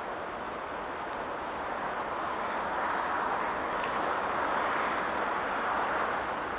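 Distant road traffic as a steady rushing noise, slowly growing louder.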